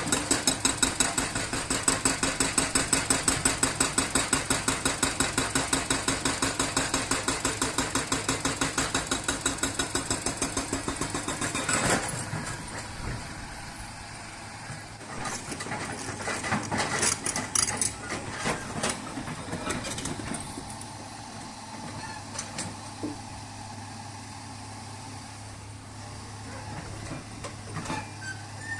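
Heavy diesel engine of road-construction machinery running close by with a fast, even pulsing beat, cutting off suddenly about twelve seconds in. Scattered knocks and clatter follow over a steady low hum.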